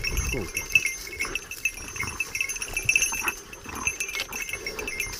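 Small bells on the pointing dogs' collars jingling irregularly as the dogs move and tug at the boar carcass, with light rustling in the dry scrub.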